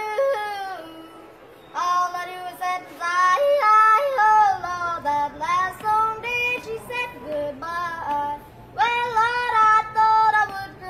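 A young boy yodeling a country song, his voice flipping sharply between chest voice and falsetto in short sung phrases.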